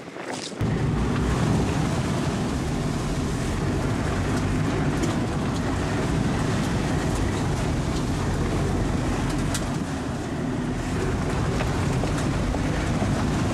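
Off-road 4x4's engine running steadily, heard from inside the cabin as it drives through deep muddy water, with muddy water washing over the windscreen and body. It starts suddenly about half a second in.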